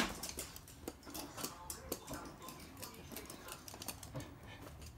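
Toy poodle's claws clicking on a hard wooden floor as it trots, a light, irregular patter of small ticks.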